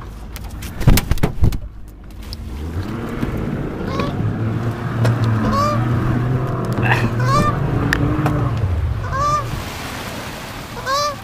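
Canada goose honking, about eight short honks spread over several seconds, over the steady low hum of a small boat's outboard motor. A few sharp knocks sound about a second in.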